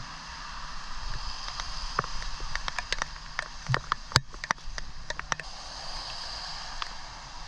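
Steady hiss of falling rain, with a quick run of sharp clicks and taps from about two to five and a half seconds in.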